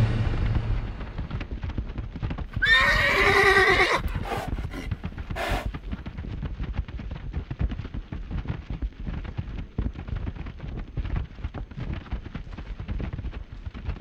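A horse whinnies once, for about a second, roughly three seconds in, followed by hoofbeats that keep up an irregular clip-clop through the rest.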